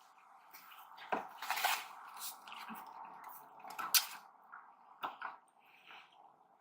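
Close-miked chewing and wet mouth sounds of someone eating pizza: a run of short smacks and clicks, the loudest about one to two seconds in and again about four seconds in, over a steady background hum.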